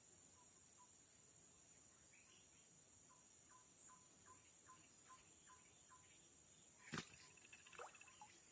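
Rainforest insects keep up a steady high-pitched drone, with an animal's short call repeating about two to three times a second underneath. A sharp click sounds about seven seconds in.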